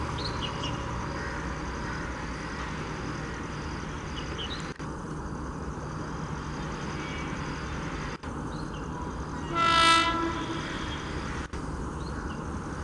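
WAP5 electric locomotive approaching with a steady low rumble, sounding its horn in one short blast about three-quarters of the way through.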